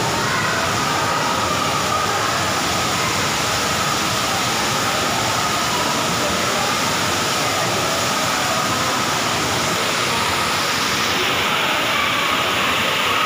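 Steady rushing of water from an artificial rock waterfall. The sound shifts slightly about eleven seconds in.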